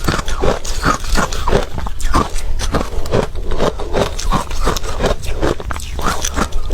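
Close-miked chewing of ice: a quick, uneven run of crisp crunches, several a second, with a steady low hum beneath.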